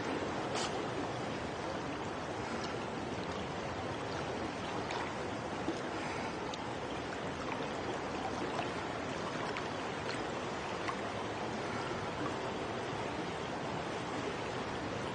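Steady, even rushing ambience of an indoor swimming pool hall, water in the pool lapping, with a few faint scattered ticks.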